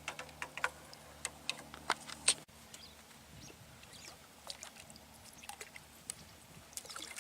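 Water splashing in short, irregular bursts: a hooked fish thrashing at the surface as it is played on a long fishing pole.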